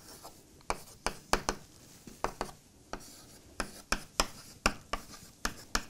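Chalk writing on a blackboard: an irregular run of sharp taps and short scrapes as symbols are chalked up.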